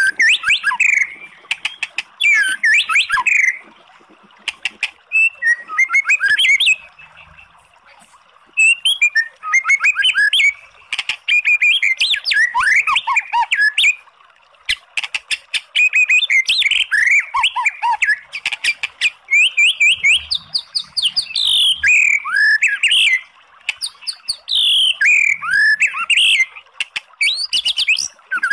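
White-rumped shama singing: bursts of quick, varied whistled phrases with rising and falling notes and sharp clicking notes, broken by short pauses every few seconds.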